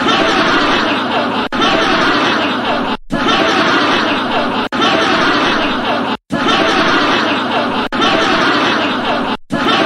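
A group of people laughing, a continuous crowd laugh that breaks off briefly about every second and a half.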